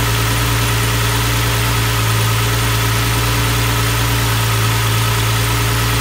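Car engine idling steadily, heard in the engine bay, with a constant hum and no change in speed.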